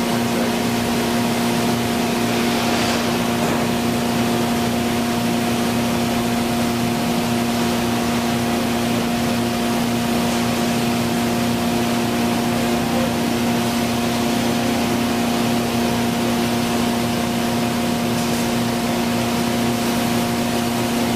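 Industrial machinery running steadily, an electric motor-driven machine in a plastics-processing plant: a constant low hum of several fixed tones over a rushing noise.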